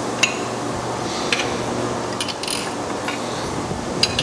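Ratchet wrench clicking in short spells with light metal clinks as the main-cap side bolts of an aluminum V8 engine block are loosened.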